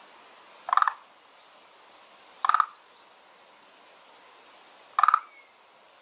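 A frog calling from a garden pond: three short rattling croaks, each a quick run of a few pulses, spaced about two seconds apart.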